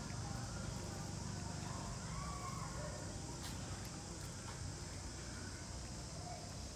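Outdoor background with a steady low rumble and a few faint, brief high calls about two seconds in, plus a light click a little later.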